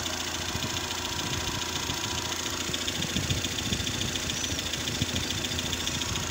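Freshly rebuilt Renault Energy inline-four petrol engine idling steadily.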